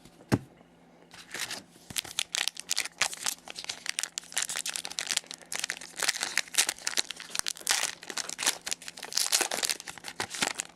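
Trading card pack wrappers crinkling and tearing as hockey card packs are opened by hand. A single sharp click comes first, then a dense run of crackling starts about a second in.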